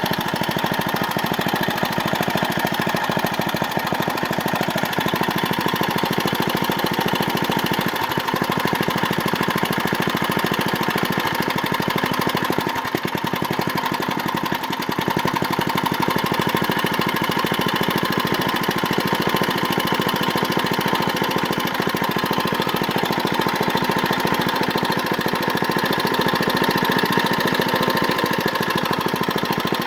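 1995 Briggs & Stratton single-cylinder small engine running steadily, with a brief dip in level about 13 seconds in. It is an engine running again after sitting unstarted for seven years.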